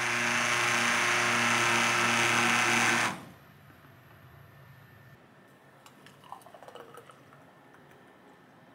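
Stick blender running in a glass jug of fruit and vegetable juice: a steady motor whine with a pulsing hum that cuts off suddenly about three seconds in. A few seconds later come faint clinks and a short pour of juice into a glass.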